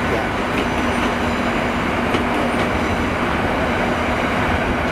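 Great Western Railway Hitachi intercity express train, two coupled units, running past along the platform: steady loud rolling noise of wheels on rail with a steady low hum and a few faint clicks.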